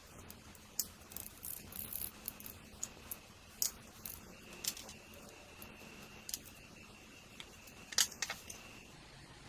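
Scattered light clicks and ticks, irregular and a second or so apart, with a sharper cluster about eight seconds in: small metal parts and hand tools being handled at the bench.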